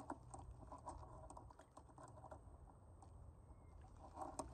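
Near silence with faint, irregular little clicks and ticks of small ripples lapping at the lake's edge.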